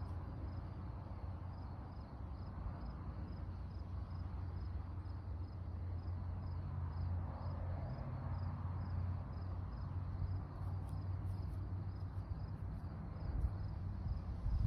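A cricket chirping steadily, a short high chirp about three times a second, over a steady low rumble, with wind buffeting the microphone near the end.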